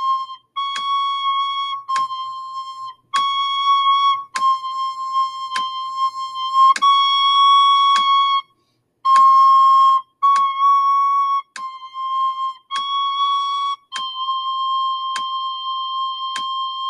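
A recorder plays held notes that switch back and forth between C and D. A metronome clicks at 50 beats a minute under the notes. The playing breaks off briefly a little past halfway for a breath.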